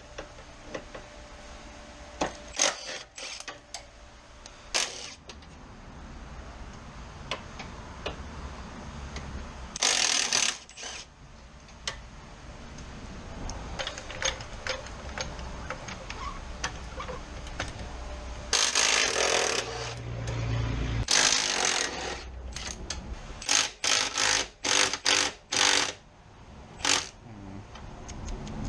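Garage work noises: scattered clinks and knocks of tools and equipment being handled, a few longer scraping bursts, and a quick run of sharp knocks about three-quarters of the way through, as a jack and wheel dollies are set up under a car.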